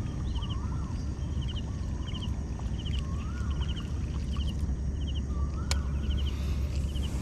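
Outdoor ambience: a steady low rumble under repeated animal calls, a quick high trill about every half second and rising-falling whistles about once a second, with one sharp click near the end.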